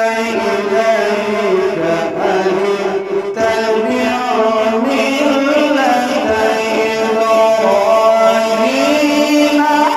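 A man reciting the Quran in the melodic tilawat style into a microphone: long held notes that slide and step between pitches, rising near the end.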